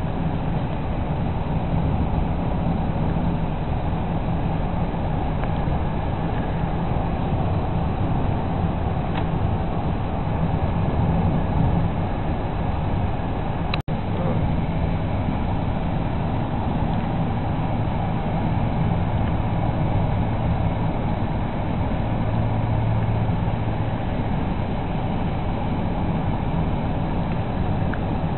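Steady road and engine noise inside a moving car's cabin, a constant low rumble with tyre hiss, broken by a momentary dropout about halfway through.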